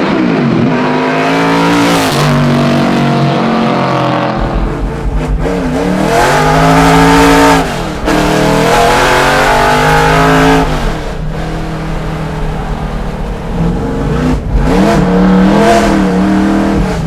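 Straight-piped small-block V8 of a 1970 Chevrolet Camaro Trans Am race car under hard acceleration. The engine note climbs and drops back several times as it shifts through the gears.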